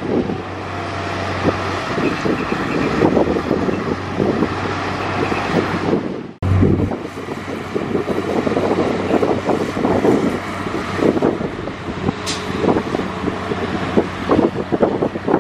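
Heavy diesel earthmoving machinery running, with a steady low engine hum, irregular rattling and wind buffeting the microphone. The sound cuts out abruptly for a moment about six seconds in.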